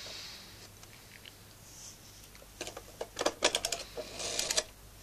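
Quick runs of small mechanical clicks from an old BT telephone. They start about two and a half seconds in and stop shortly before the end.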